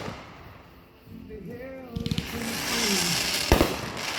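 Fireworks exploding: a few bangs about two seconds in, a crackling hiss after them, then a loud boom near the end, with people's voices in between.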